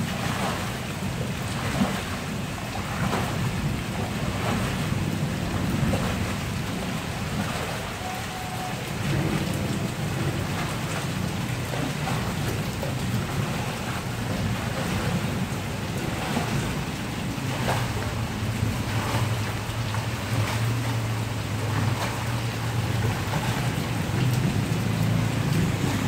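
Heavy rain falling steadily on a flooded concrete courtyard, with repeated splashing and sloshing every second or two as a floor squeegee shoves standing water along the ground.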